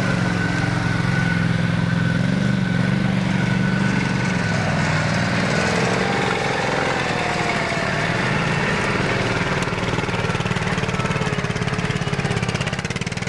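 Garden tractor engine running steadily, its pitch wavering slightly in the middle.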